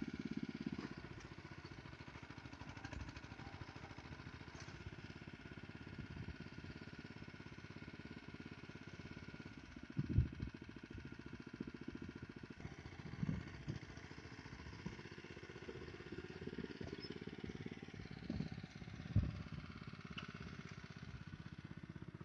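Rice transplanter's small engine running steadily, with a few low thumps along the way, the loudest about ten seconds in.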